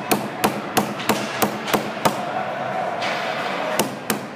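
Hard knocks on the rink boards, about three a second, stopping about two seconds in, then two single knocks near the end, over the steady background noise of the rink.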